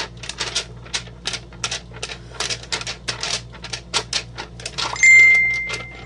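Quick flapping clicks, three or four a second, as something is fanned at the face to dry it. About five seconds in, a single high electronic beep, the loudest sound, holds for about a second and fades.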